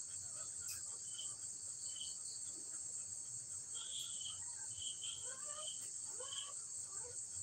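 Insects chirring in a steady high drone, with short sharper chirps every second or so.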